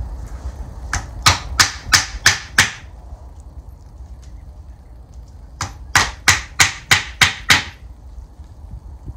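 Hammer driving long round wire nails into wooden slats, about three strikes a second. It strikes in two runs: about six blows a second in, then about seven more a few seconds later.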